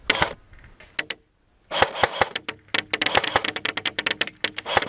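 Airsoft guns firing: a single shot at the start and a couple more about a second in, then, after a brief drop to silence, rapid strings of shots at around ten a second.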